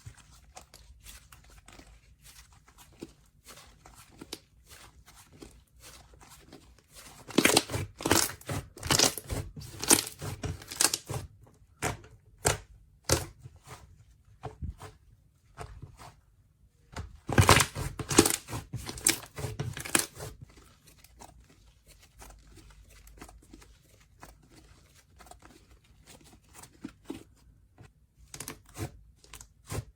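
Hands squeezing, stretching and mixing clay slime, making a string of quick clicks and pops. It is sparse and quiet for stretches, with two louder, busier spells about 7 to 11 seconds in and 17 to 20 seconds in.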